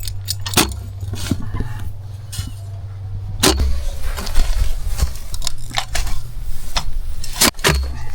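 An engine running at a steady speed, with several sharp metallic clanks and knocks over it; the loudest knock comes near the end.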